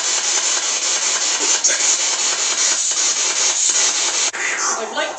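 Spirit box sweeping radio static: a loud, steady, coarse hiss with a fast flicker, in which the words "to protect" are claimed. About four seconds in the static cuts off sharply and a voice-like sound begins.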